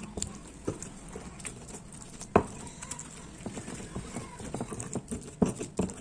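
Stone pestle (ulekan) pounding and grinding wet chilies, tomatoes and shallots against a stone mortar (cobek): irregular dull knocks, the loudest about two and a half seconds in, with a quicker run of knocks near the end.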